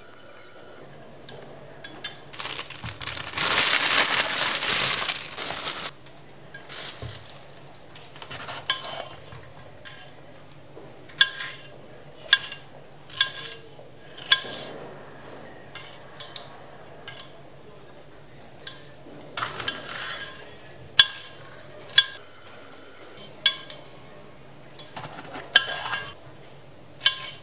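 A kitchen knife chopping carrots and bell peppers on a hard chopping board: irregular sharp clicks and knocks as the blade strikes the board, sometimes one or two a second, with pauses between. A rough noise lasting about three seconds comes a few seconds in.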